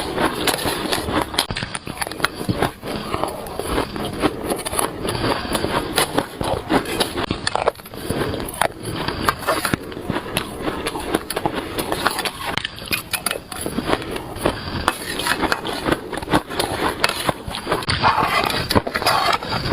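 Shaved ice being bitten and chewed close to the microphone: dense, continuous crunching and crackling.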